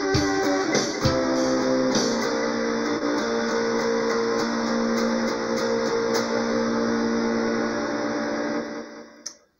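Electric guitar, a white Stratocaster-style, playing a few picked notes and then a chord left ringing for several seconds. The ringing slowly fades and is cut off with a click near the end.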